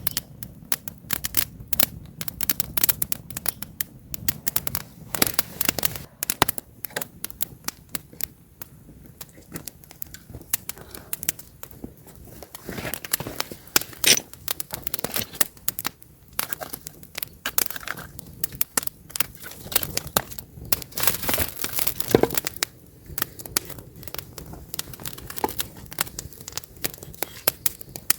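Wood campfire crackling and popping as the logs burn, with dense irregular snaps over a low hiss of flame.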